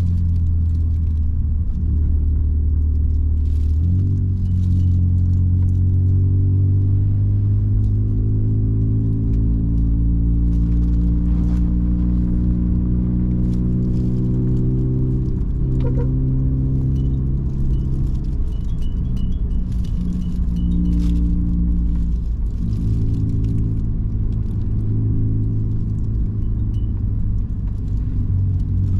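Car engine heard from inside the cabin, pulling uphill: its pitch climbs steadily, then drops at gear changes about four seconds in, around the middle, and again later. A faint, high, repeating chime sounds for a few seconds about two-thirds of the way through.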